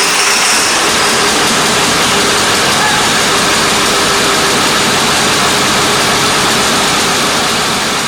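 Ford F350's 7.3-litre V8 diesel engine running loud and steady just after being started.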